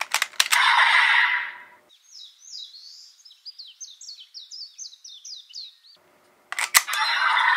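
A bird singing a quick run of about a dozen short, falling chirps. Before and after it come loud, hissy toy-belt sound effects, each opening with sharp clicks: the first lasts about two seconds, the second starts near the end.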